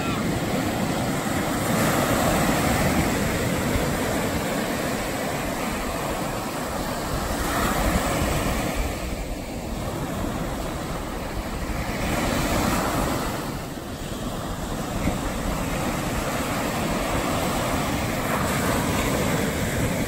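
Ocean surf breaking on a sandy beach and washing up the shore, a steady rush of water that swells and eases every few seconds as each wave comes in.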